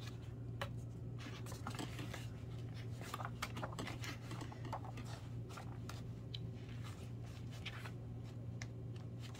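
Pages of an airbrush nail stencil book being leafed through and stencils handled with metal tweezers: light paper rustles and small scattered clicks, over a steady low hum.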